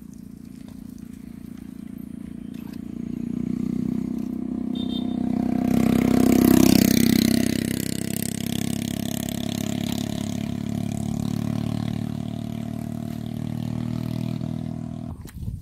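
A motor vehicle's engine running steadily, growing louder over the first few seconds and loudest about six seconds in, then holding steady before cutting off suddenly near the end.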